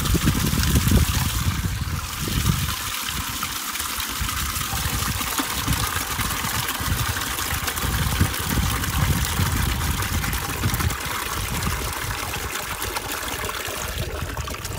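Water gushing from an IBC tank's outlet valve into a plastic bucket, a steady splashing pour into the water already in it.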